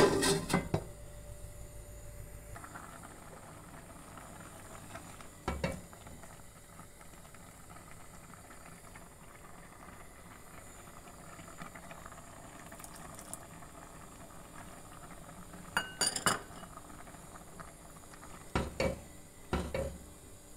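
Cookware clatter: a stainless steel pot lid clanks once at the start, then a few separate knocks and clinks of a bowl and spatula against a pot of rice and lentils as stock is poured in and stirred, three of them close together near the end.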